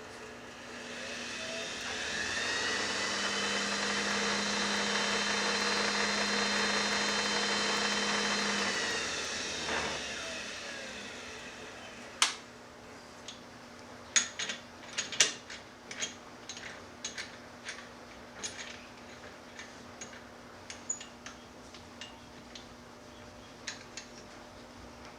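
Wood lathe motor spinning up, running at a steady whine for several seconds, then winding down to a stop. Afterwards come a scattered series of sharp clicks and knocks.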